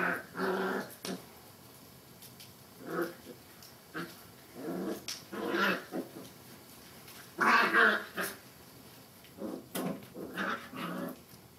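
Seven-week-old yellow Labrador puppies play-growling as they wrestle, in short bursts separated by pauses.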